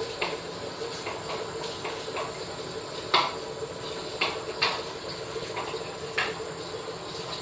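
A steady low hum with about nine or ten light, scattered clicks and clinks over it; the sharpest comes near the middle.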